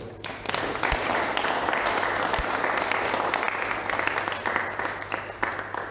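A roomful of people applauding, starting a moment in and dying away near the end.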